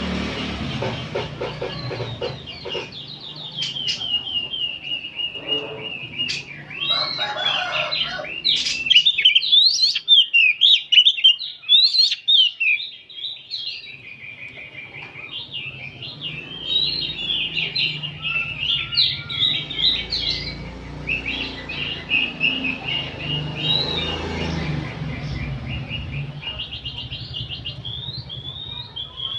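Several oriental magpie-robins singing together in a busy chorus of rapid, varied whistles and chattering notes, loudest about ten seconds in.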